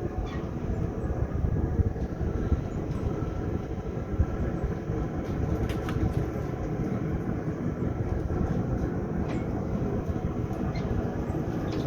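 A steady, low rumbling noise with a few faint clicks about halfway through and near the end.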